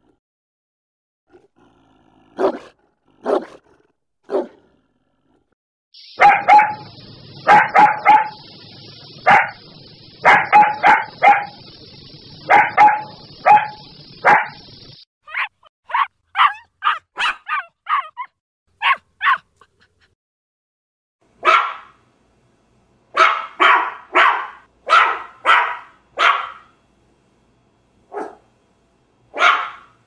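Dogs barking in a string of separate recordings. First come a few single barks. Then a dense run of barks plays over steady background noise, followed by quicker short barks and closing bursts of barking near the end.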